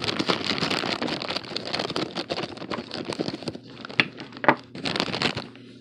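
Plastic mailer pouch crinkling and rustling as it is handled and pulled open, with two sharp clicks about four seconds in.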